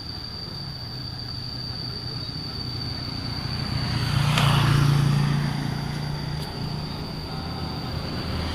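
A motor vehicle's engine passing close by, its low hum swelling to a peak about four to five seconds in and then fading, with another beginning to swell near the end. A thin, steady high tone runs underneath.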